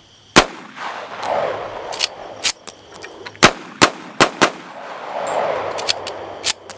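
.45 ACP semi-automatic pistol firing a string of sharp shots at an uneven pace, the loudest about half a second and three and a half seconds in. Each shot is followed by a rolling echo.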